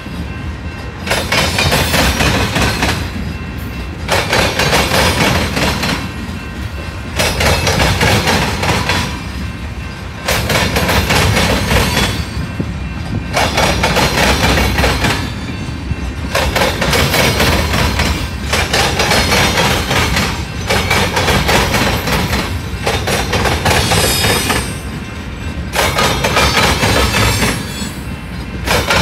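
Freight train of tank cars rolling past close by, wheels clattering on the rails. The noise swells and eases about every two to three seconds as the cars go by.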